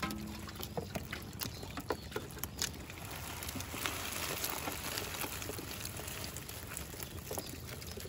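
Wet fish catch being sorted by hand in a small boat: water splashing and dripping, with scattered short taps and slaps as the fish are handled and flop about.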